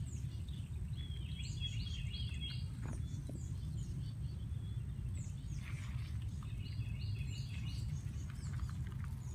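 Small birds chirping in two runs of quick, falling chirps, about a second and a half in and again around seven seconds in, over a steady low rumble.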